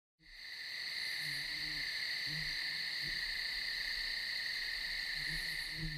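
Night nature ambience: a steady, high-pitched insect chorus with a few short low animal calls scattered through it, fading in at the start.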